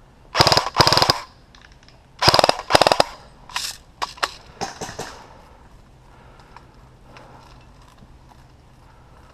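Airsoft electric rifle (AEG) firing four short full-auto bursts in two pairs about two seconds apart, each a fast rattle of shots, followed by a few fainter single cracks.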